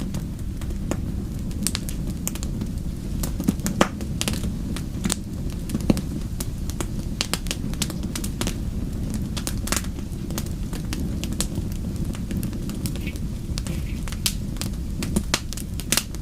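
Fireplace fire crackling: many sharp, irregular pops and snaps over a steady low rumble of flame.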